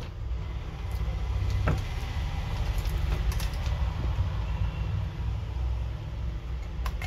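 Steady low rumble under a few light clicks and rattles as a handheld digital multimeter and its test leads are picked up and handled, with a small cluster of clicks about halfway through.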